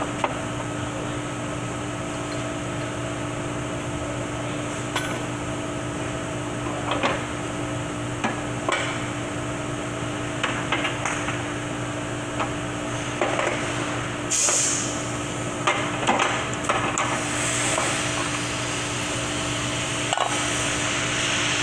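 Scattered metal knocks and clinks of tools working on a 4L60E transmission drum while its bushings are being removed, over a steady shop drone. There is a short hiss about two-thirds of the way in and a longer one near the end.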